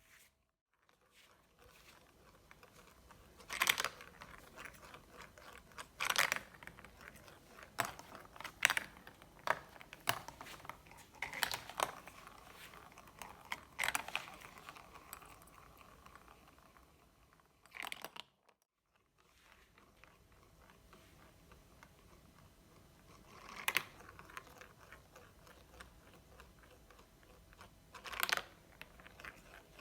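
Glass marbles rolling and rattling along a plastic marble-run track, with clusters of sharp clacks every few seconds as they drop and strike the pieces. The sound cuts out completely twice, briefly, near the start and a little past halfway.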